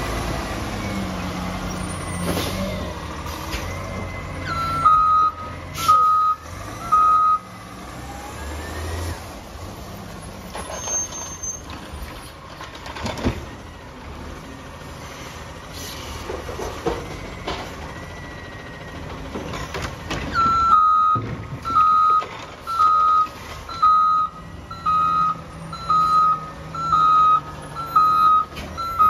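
Automated side-loader garbage truck: the diesel engine running at first, three reversing beeps at about 5 to 7 seconds, then knocks and bangs in the middle as the mechanical arm lifts and tips a trash cart into the hopper. From about two-thirds through, the reversing beeps sound steadily about once a second.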